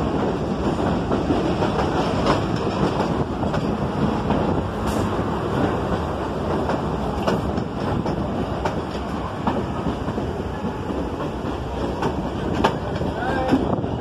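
Vintage New York City subway train running on the tracks: a steady rumble with the wheels clicking irregularly over rail joints.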